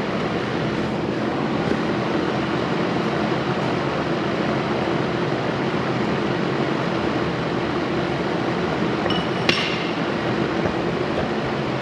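A steady hum throughout, with one sharp metallic clink of a hand tool against steel suspension parts about nine and a half seconds in.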